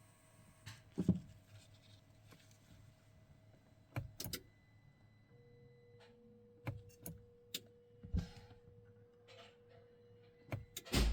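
Sharp clicks in the 2016 Mercedes GLE 450, about ten, scattered and irregular, the loudest near the end, with a faint steady tone in the second half and no engine catching. They are typical of the starter only clicking on a failed start, a sign of low voltage or a bad ground when the auxiliary battery is connected.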